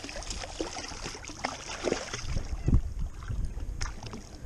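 Water splashing and lapping against a boat's hull as a hooked bonnethead shark swims and thrashes at the surface alongside, over a low rumble of wind on the microphone.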